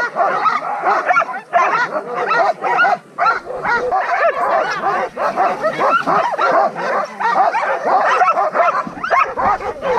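A team of harnessed sled dogs barking and yipping all together, a dense unbroken chorus of excited, overlapping calls.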